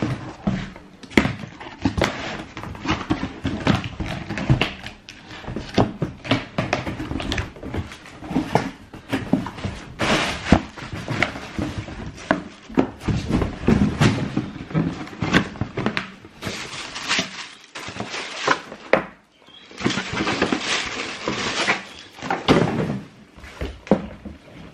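Cardboard shoebox and its wrapping being handled: continuous rustling and crackling, with loud sharp knocks now and then and a brief pause about three-quarters of the way through.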